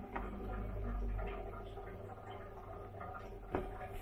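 Low rumble of the recording phone or camera being handled and moved, then a single sharp click or tap about three and a half seconds in.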